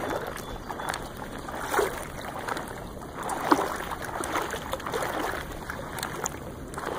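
River water sloshing and splashing in an uneven, continuous wash, with louder splashes about two seconds and three and a half seconds in.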